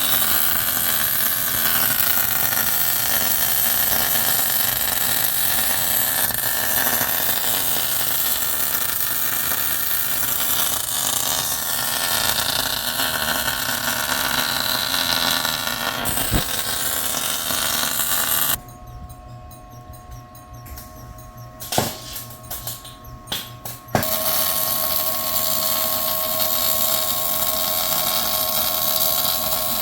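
Welding arc crackling steadily as steel subframe connectors are welded onto the car. The arc breaks off about two-thirds of the way through, a few clicks and a steady hum follow, and then the welding starts again.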